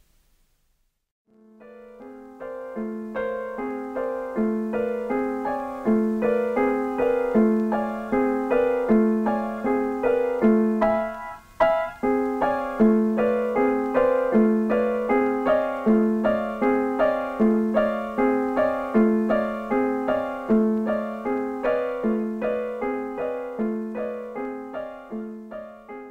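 Solo grand piano playing a slow, repetitive piece: chords and a low note repeated in an even pulse. It begins about a second in, breaks off briefly near the middle, and fades near the end.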